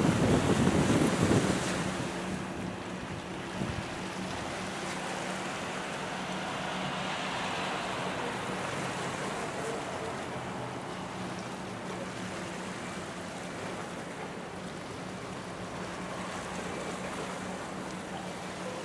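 Wind buffeting the microphone over water washing against the shore, with a steady low machinery hum underneath. A louder rumble fades away in the first two seconds.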